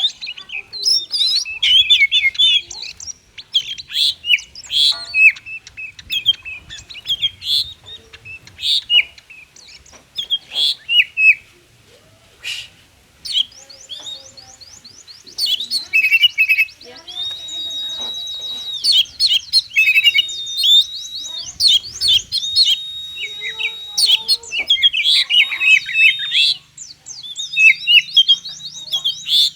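Oriental magpie-robin (kacer) singing nonstop in the frantic 'konslet' style, used as a bait song to get lazy kacer singing. The song runs through quick varied chirps and trills, with a fast run of repeated notes past the middle and then several long, level whistles.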